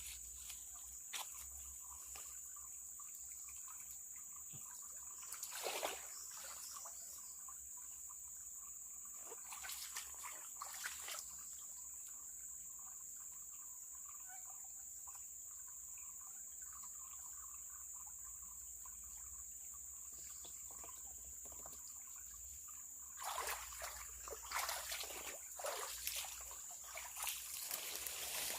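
Small river trickling along the bank under a steady high-pitched hum. A few scattered splashes and clicks, then a busier run of splashing and handling noise in the last five seconds.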